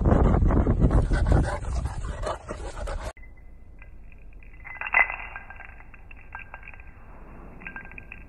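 Wind buffeting the microphone for about three seconds, cutting off suddenly. Then a quiet room with a sharp clink about five seconds in and a few lighter ticks and clinks from a wand toy batted by a cat.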